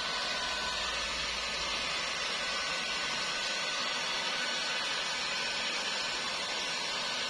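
Small handheld hair dryer running steadily: an even rush of air with a thin, steady high whine.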